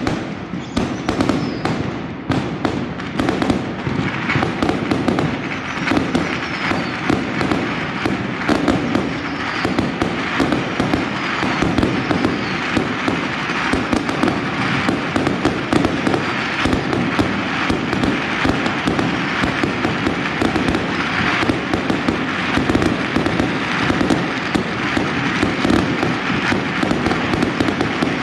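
Aerial fireworks going off in a continuous barrage: dense, rapid bangs and crackling bursts without a pause.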